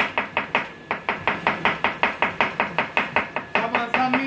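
Knife rapidly slicing red onion on a plastic cutting board: quick, even strokes about six a second, with a brief break about a second in.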